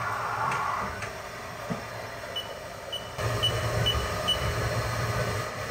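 Five short high beeps from the control keypad of a Haas CNC vertical mill, about half a second apart, as the mill is started on its program. A low machine hum comes in partway through.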